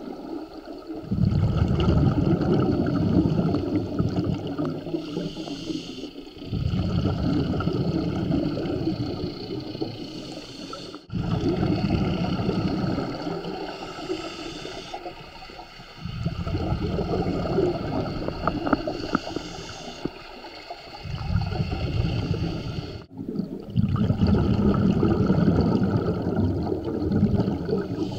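Scuba diver breathing through a regulator, heard underwater: long bursts of bubbling exhaust rumble alternate with short hissing inhalations, one breath about every five seconds.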